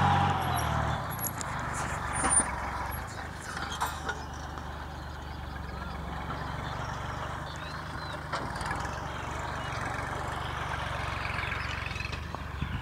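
Kubota L3608 tractor's diesel engine running steadily under load as it pulls a disc plough to raise a paddy levee. The engine sound fades during the first second as the tractor moves away, then stays as a steady low hum. A few small clicks and one sharper knock come about two seconds in.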